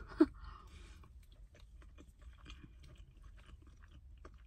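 A person chewing a mouthful of rice and vegetables with the mouth closed: faint, soft, scattered mouth clicks. A short louder sound comes right at the start as the spoon comes out of the mouth.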